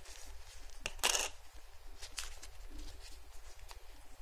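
Light clicks and taps from handling a thin platinum coin and its plastic coin capsule, with one brief, brighter clink about a second in.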